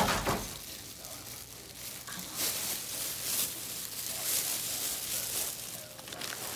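A bump of the phone being handled, then on-and-off rustling of bedding and hospital gown over a faint steady low hum.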